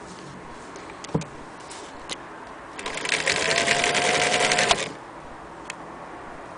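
Singer 306K electric sewing machine running for about two seconds as it stitches through denim: a rapid clatter of the needle with a motor whine that rises slightly, then stops abruptly. A few sharp single clicks come before and after the run.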